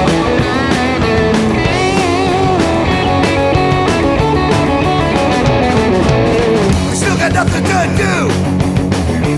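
Punk rock band in an instrumental break between verses: electric guitar playing wavering, bending notes over bass guitar and drums.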